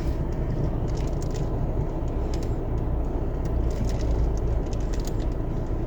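Steady low rumble of a car's interior, with light scattered crinkling clicks as a child works at opening a plastic bread wrapper.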